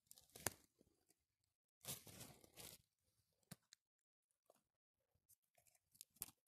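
Faint crunching and rustling of dry leaves and twigs on the forest floor in a few short bursts, with a sharp crack about half a second in.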